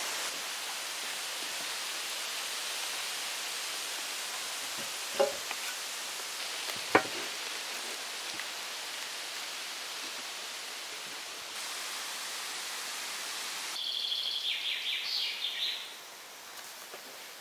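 Steady outdoor hiss, broken by two sharp knocks about two seconds apart, then a short, rapid, high chattering call near the end.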